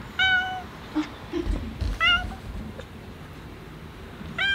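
Domestic cat meowing three times, short pitched meows about two seconds apart, the last one near the end. It is begging at a screen door to be let in and fed.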